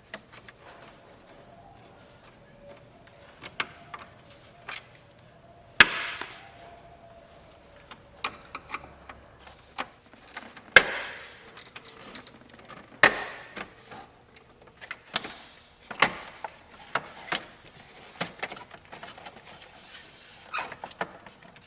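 Irregular sharp clicks, knocks and snaps of a 1995 Chevy S10's dash trim panel being unscrewed and pried loose from around the headlight switch, with the loudest knocks about 6, 11, 13 and 16 seconds in.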